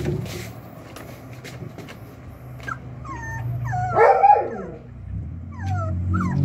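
24-day-old Doberman puppies whimpering and yipping in short, high, falling cries. The cries come scattered at first, with a louder outburst about four seconds in, then quickly, several a second, near the end over a low steady hum.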